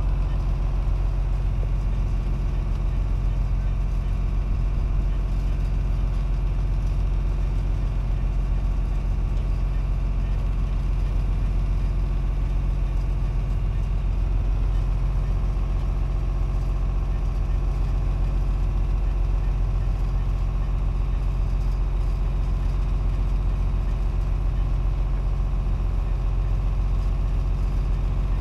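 Sailing yacht's inboard engine running steadily under way, a constant low drone with no change in speed.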